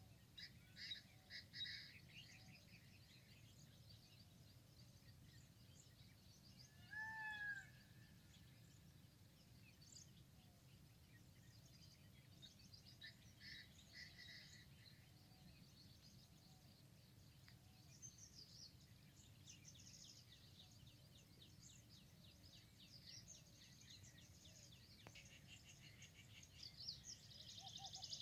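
Wild birds chirping faintly off and on over a low, steady background noise. The chirping grows busier near the end, and one louder short arching call comes about seven seconds in.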